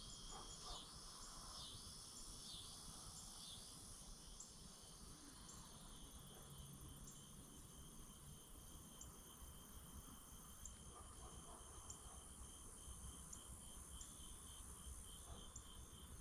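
Faint, steady trilling of insects, pulsing evenly, with a few short chirps in the first second.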